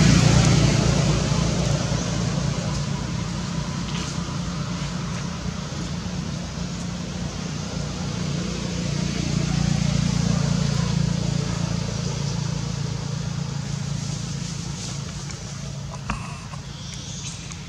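A low, steady motor hum, like a vehicle engine running nearby, over outdoor background noise. It is loudest at the start, swells again about ten seconds in, and there is a brief knock near the end.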